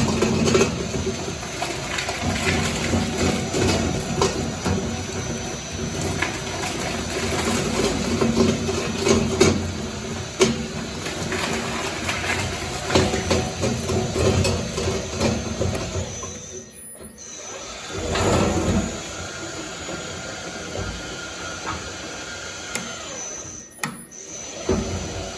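Shredder grinding slime: dense crunching and crackling with many sharp clicks over the steady run of the machine. It breaks off briefly twice, about two-thirds of the way through and near the end.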